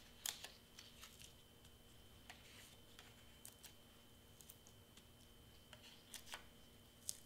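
Near silence, broken by faint scattered clicks and paper rustles as adhesive foam squares are peeled from their backing sheet and pressed onto cardstock letters.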